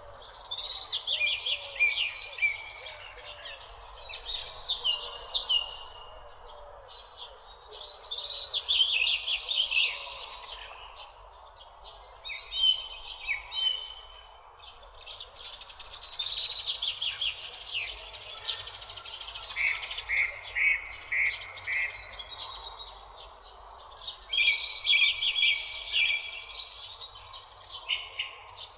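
Songbirds chirping and singing in bursts of quick, sweeping trills every few seconds, over a steady background of fainter natural ambience.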